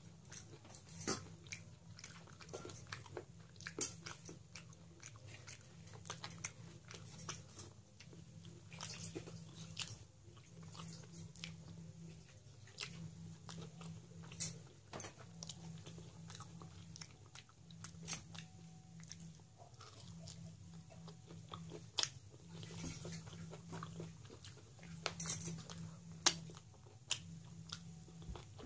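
Close-up chewing and biting as a person eats rice pilaf and dry mutton curry by hand, with frequent sharp mouth clicks throughout.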